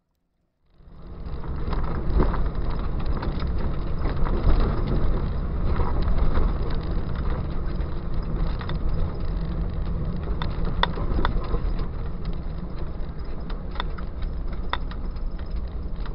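A Jeep driving on a rough dirt trail: a steady low rumble of engine and tyres, with scattered knocks and rattles. The sound fades in from silence in the first second.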